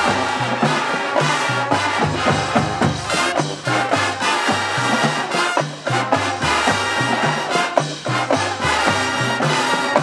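College marching band playing a big-band arrangement, led by the brass section of trumpets and trombones, with low brass stepping through a moving bass line underneath.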